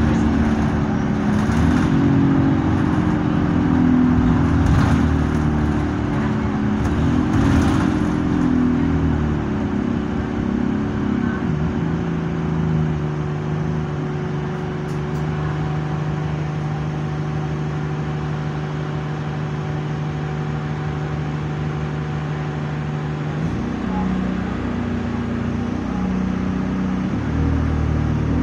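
Diesel engine and Allison automatic gearbox of an Alexander Dennis Enviro200 bus heard from on board, the engine note rising and falling through the gears. It then holds one steady note for about ten seconds before picking up again near the end. The uploader says this bus is running in limp mode with no kickdown.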